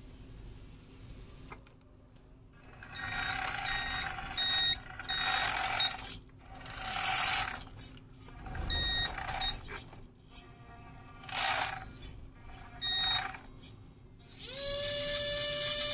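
RC Linde H40D model forklift reversing, its backup beeper sounding in repeated short beeps over the whine of its electric drive motor, in stop-start bursts as it manoeuvres. Near the end a motor whine rises in pitch and then holds steady.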